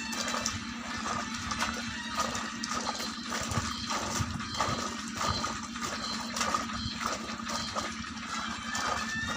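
Water sloshing and splashing as a heap of carrots is trodden and stirred underfoot in a shallow water-filled pit to wash them, pulsing about twice a second with each step.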